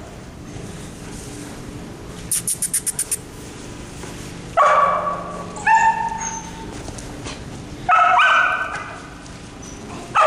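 A dog barking, three or four loud separate barks that ring and fade, with a quick run of about eight high chirps shortly before them.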